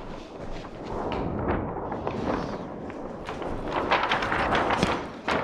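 Irregular rubbing and handling noise with scattered knocks and taps, busier in the second half, and one sharp knock near the end.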